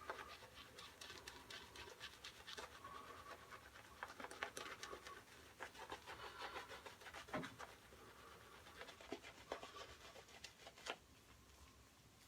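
Synthetic-knot shaving brush working shaving cream into a lather on the face: faint, irregular swishing and scratching with many small crackles of wet lather.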